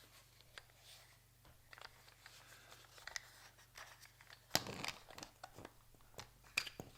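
Faint scattered clicks and scraping from the plastic housing of a 90-degree drill attachment being handled and pried open, with a couple of sharper clicks in the second half.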